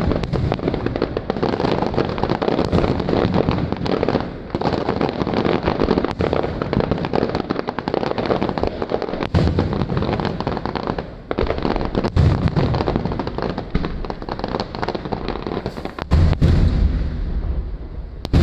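Aerial fireworks going off in a dense, continuous barrage of crackles and bangs, with a run of deep, heavy booms near the end.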